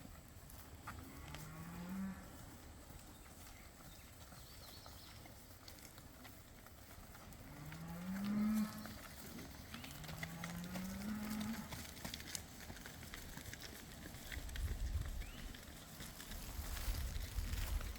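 Cattle mooing: three separate calls, each rising in pitch, the middle one the loudest. A low rumble comes in near the end.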